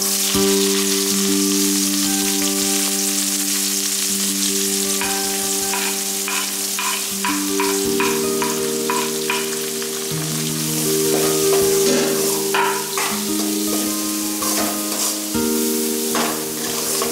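Chopped onions and green chillies sizzling loudly as they go into hot oil in a metal kadai. From about five seconds in, a metal spoon stirring them scrapes and taps against the pan again and again.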